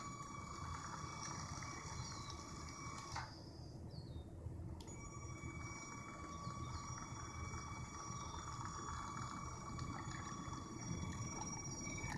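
Two 9V LEGO train motors driving a model train along its track: a steady electric whine over a low rumble of wheels. The whine cuts out with a click about three seconds in and comes back with another click a second and a half later.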